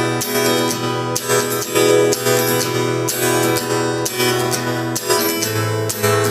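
Acoustic guitar strummed in a steady rhythm using the percussive 'knock' (стук) strumming technique. Chords ring between sharp strikes on the strings, roughly one a second.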